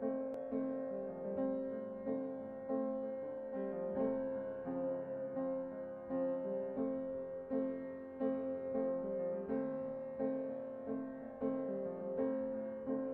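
Background music: an instrumental piece with notes struck at a steady, even pulse.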